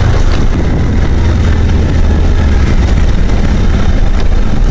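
Motorcycle engine running at steady low revs while ridden downhill, with a rushing haze of wind noise over it. The engine note drops a little about halfway through.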